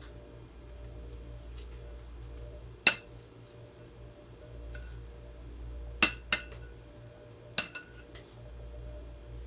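Metal spoons clinking in a glass mixing bowl as a chickpea salad is tossed. There are sharp clinks about three seconds in, two close together about six seconds in, and one more about seven and a half seconds in, with softer ticks between.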